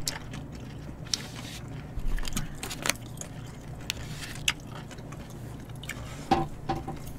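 Chewing of bossam and kimchi, with scattered light clicks and taps of wooden chopsticks against the food containers.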